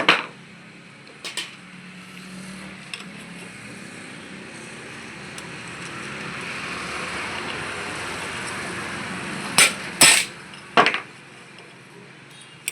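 Sharp metal knocks from tools on a car alternator being dismantled for a bearing replacement: one at the start, another about a second in, and three close together near the end. Between them a steady rushing noise swells and fades.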